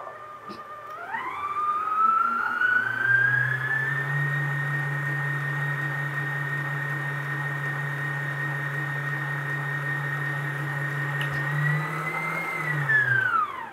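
Electric kitchen mixer's motor running while it beats a cheesecake filling. Its whine rises as it speeds up about a second in, holds steady with a low hum, then winds down and stops near the end.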